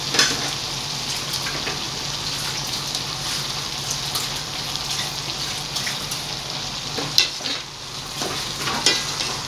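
Chopsuey vegetables sizzling steadily in a stainless steel pot, with a steady low hum underneath. A wooden spatula stirs them near the end, knocking sharply against the pot about seven seconds in and again near the end.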